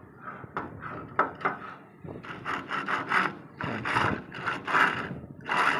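Worn clutch release bearing turned by hand, giving a rough, gritty rasping grind in short repeated strokes that grow louder about two seconds in. The bearing's inner housing has broken up, which is what makes it so noisy.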